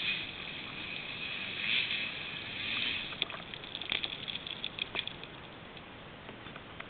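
Enduro dirt bike engine fading away up the slope. It is followed by a spatter of dirt and small stones thrown up by its rear wheel raining down, a flurry of sharp clicks and ticks from about three to five and a half seconds in.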